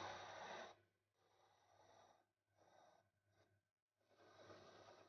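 Faint scratchy brushing of a small steel part held against a wire brush spinning in a bench drill press, over the drill motor's steady hum. It comes in four short stretches, each cut off abruptly.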